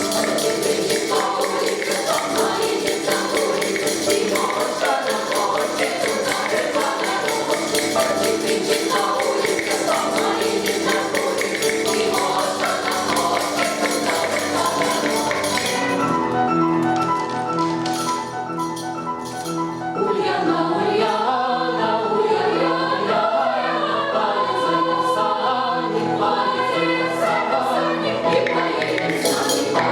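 A choir singing a Russian folk song over jingling, rattling percussion. About halfway through the percussion thins out and the sung melody stands out; near the end sharp jingling strokes come back.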